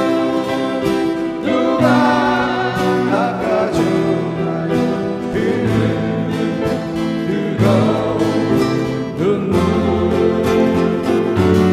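Live acoustic band playing a slow ballad: strummed acoustic guitars and keyboard chords, amplified, with a wavering melody line carried over them.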